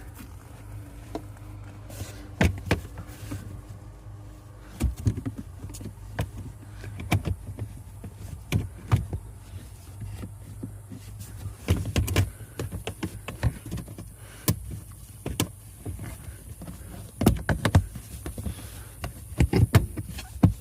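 Irregular clicks and knocks of plastic interior trim being handled and fitted in a car, over a steady low hum.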